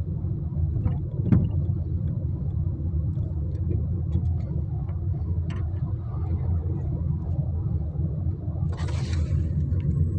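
Steady low rumble of a car driving, heard from inside the cabin: engine and tyre noise. A single thump about a second in, and a brief hiss near the end.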